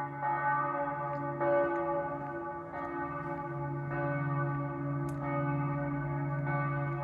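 Church bells ringing, with a fresh strike about every second and a quarter over a steady, lingering hum.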